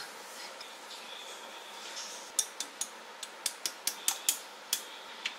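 Sharp, irregular clicks and taps, about a dozen over some three seconds starting a couple of seconds in, as a wooden spoon, a sauce tub and a sauce bottle are handled at an empty frying pan.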